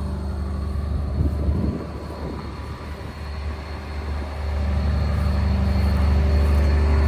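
Excavator's diesel engine running with a steady low drone. A few light clanks come about a second in, and the engine note eases off for a couple of seconds. It then rises again about four and a half seconds in and holds steady and louder.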